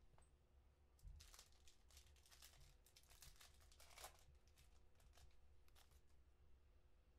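Plastic foil wrapper of a Prizm football card pack being torn open and crinkled: a faint run of rips and crackles, most intense about four seconds in, tailing off a second or two before the end.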